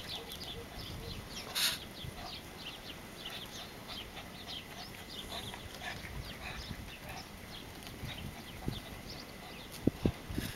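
Small birds chirping: many short, high chirps scattered throughout over faint outdoor hiss, with one brief louder burst of noise about a second and a half in.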